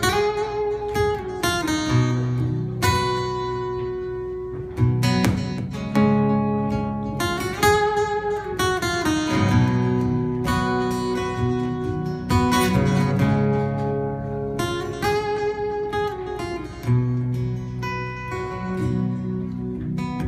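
Strummed acoustic guitar chords with a sustained lead melody over them, its notes bending and wavering: the instrumental intro to a song, with no singing.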